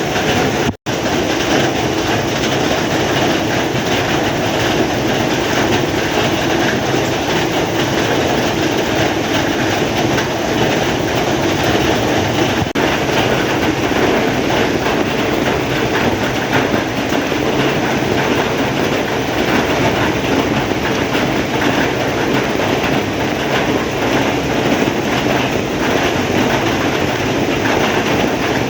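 Heavy rain falling, a dense steady downpour, with a split-second gap about a second in.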